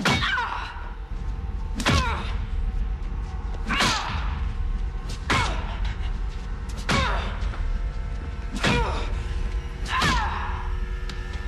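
A series of seven heavy thuds, about one every one and a half to two seconds, each trailed by a falling pitched sweep, over a steady low rumble. These are the rhythmic hits of a horror film's soundtrack during a violent struggle.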